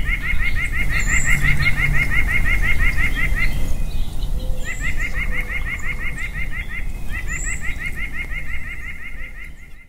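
White-breasted nuthatch singing: runs of quick, even, nasal notes, about six a second. The first run breaks off about three and a half seconds in, and two more runs follow with short gaps between them. The song fades out at the end, and a few faint high chirps from another bird come through above it.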